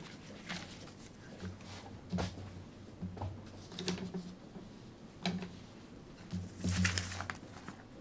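Irregular clicks and soft knocks about a second or two apart, the loudest near the end, over low room noise.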